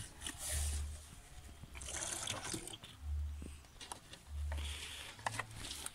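Aguamiel (maguey sap) being poured from a plastic bottle through a hose into a plastic jug, with liquid splashing and trickling on and off. A few low thuds are mixed in.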